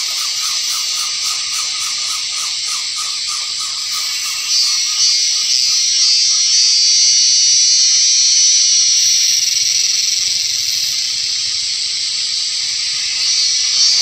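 Insect chorus, a steady high-pitched shrill hiss that swells louder about four and a half seconds in and again near the end, with faint rapid pulsing early on.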